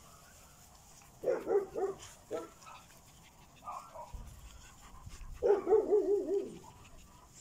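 Small puppies yapping: a quick run of three high yaps about a second in, a few single shorter ones, then a longer wavering yelp, the loudest, near the end.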